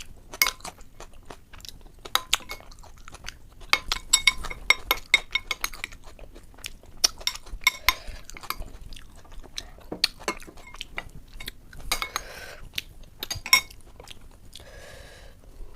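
Close-up crunching and chewing of crisp puchka (pani puri) shells filled with ghugni, in irregular clusters of sharp crackles.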